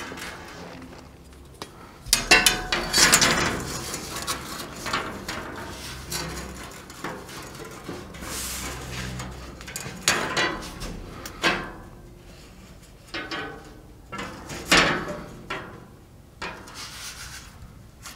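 Irregular knocks, clinks and scraping of hand work at a large steel loader bucket, as measuring tools are handled and set against its plate; the busiest stretch of rubbing and clatter comes about two seconds in, with single sharper knocks later.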